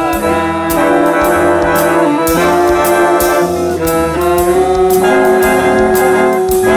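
Swing big band playing a loud instrumental ensemble passage: trumpets, trombones and saxophones holding sustained chords over a drum kit, with repeated cymbal hits; a long held note runs through the second half.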